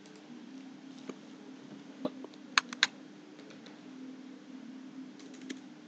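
A few computer keyboard keystrokes typing a short word, mostly about two to three seconds in, over a low steady hum.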